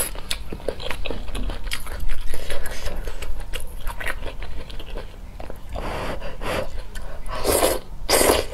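Close-miked eating sounds: chewing and mouth clicks over spicy hot-pot food, then two slurps of wide noodles sucked up from chopsticks near the end.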